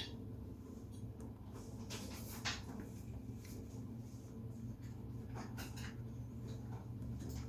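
Drawing strokes on paper: a few short scratches of a drawing tool, over a steady low hum in the room.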